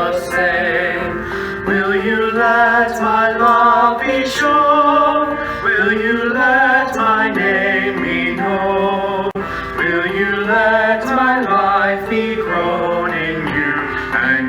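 A hymn sung to instrumental accompaniment, the voice holding long, wavering notes.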